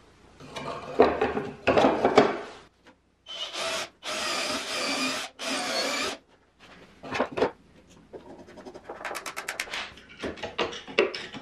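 Handheld electric drill boring into a wooden guard panel. The motor whines in three short runs a few seconds in. Before and after, the wood rubs and knocks as the piece is held and fitted, with a quick run of clicks near the end.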